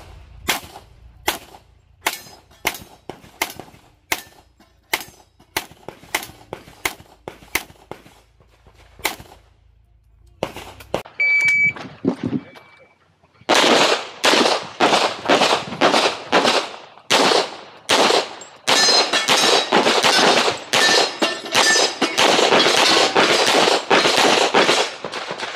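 Pistol shots crack at a steady pace, one or two a second, for the first ten seconds. About eleven seconds in, an electronic shot-timer beep sounds, the start signal of an IPSC stage. A second and a half later, loud, rapid handgun fire starts, several shots a second, as a competitor shoots the stage at speed.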